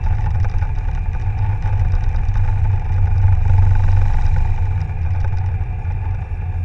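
Jet airliner cabin noise during the takeoff roll and lift-off: a loud, steady low rumble from the engines at takeoff thrust, with a steady whine above it, heard from a window seat over the wing.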